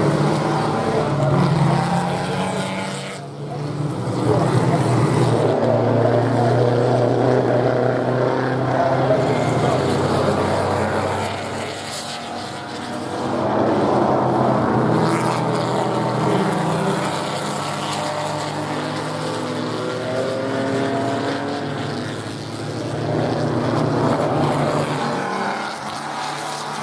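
Engines of a pack of 1930s–1950s Grand Prix racing cars running hard as they go by in a group. The sound swells and fades several times as the cars pass.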